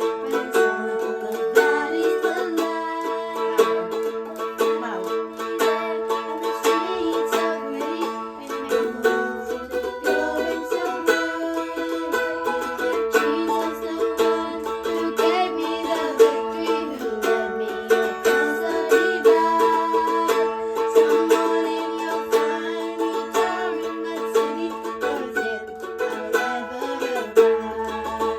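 Acoustic plucked-string music, a mandolin picking a slow folk melody with no singing.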